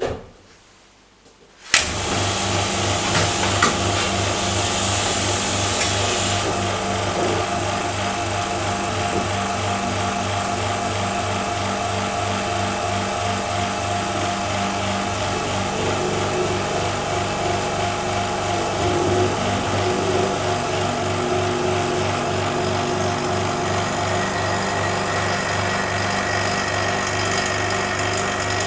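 Electric vacuum pump switched on about two seconds in and running steadily with a low motor hum, drawing vacuum on a filter flask for vacuum filtration; a higher hiss of air being drawn in for the first few seconds.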